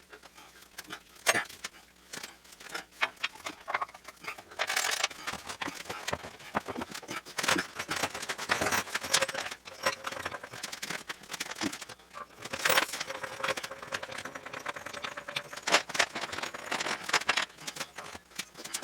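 Irregular metallic clinks, knocks and rattles of hand work on a truck's front suspension parts, with several louder knocks spread through.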